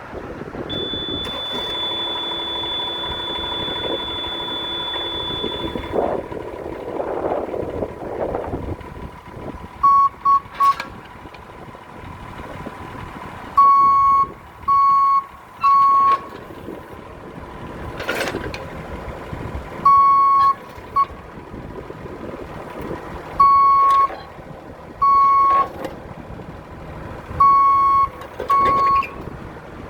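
Excavator's travel alarm beeping in groups of two or three short beeps, starting about a third of the way in, over its running engine and a steady high whine. A few sharp metallic clanks are heard along the way.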